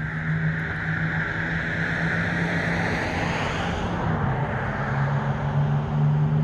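Vehicle engine running steadily with a low hum and a hiss that eases off about four seconds in, growing a little louder near the end.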